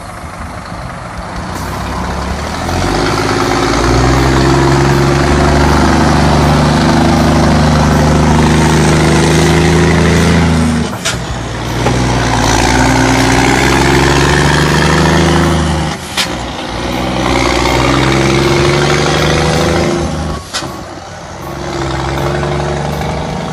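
Straight-piped Scania truck's diesel engine pulling away under load, revving up through the gears with three gear changes, each shift marked by a short sharp crack from the exhaust.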